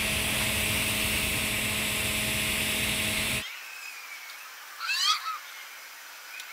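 TIG welding arc on carbon steel pipe during a fill pass at 140 amps: a steady hiss with a low hum, which cuts off abruptly about three and a half seconds in. After that, a much quieter background with two short rising chirps.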